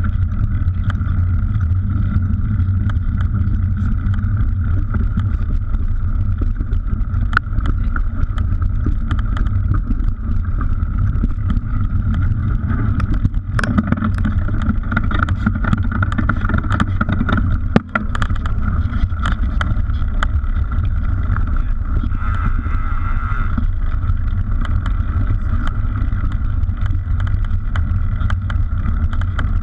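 Wind and riding noise on a mountain biker's camera microphone while descending a dirt singletrack: a steady low rush with a mid-pitched buzz, broken by frequent small rattles and knocks from the bike over the rough trail. One sharper knock stands out a little over halfway through.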